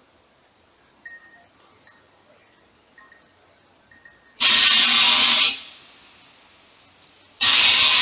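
Four short high chirps about a second apart, then two loud hissing blasts, each about a second long and three seconds apart, from a jungle-cruise ride's special effect.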